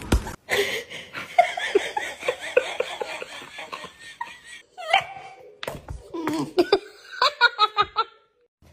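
A person laughing in rapid, repeated bursts. After a short break it comes again as another quick run of laughter near the end.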